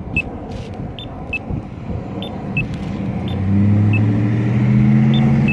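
Short high-pitched beeps from a crosswalk push-button locator tone, repeating irregularly every half second to a second, over road traffic. About three and a half seconds in, a vehicle engine close by grows loud and holds a steady low hum.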